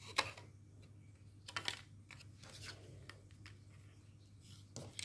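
Faint, scattered rustles and light taps of paper and cardstock being handled and cut, a few short sounds a second or so apart, over a low steady hum.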